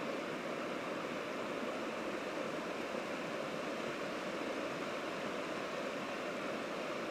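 Steady, even rushing hiss with no distinct sounds standing out from it.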